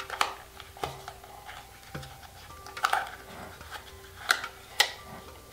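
Small hard plastic clicks and taps of a little plastic propeller case being handled and folded open, about half a dozen irregular clicks.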